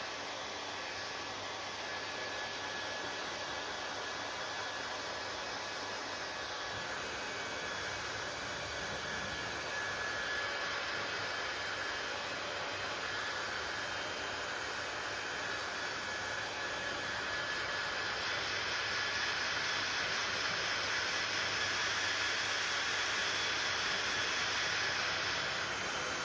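Hair dryer running steadily: an even rush of blown air with a faint whine, growing a little louder and brighter in the last third.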